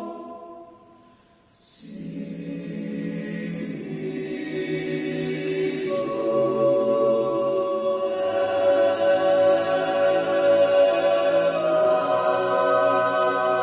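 A choir singing slow, held chords. One phrase dies away in the first second and a half, the next comes in about two seconds in, and the chords change several times and grow louder toward the end.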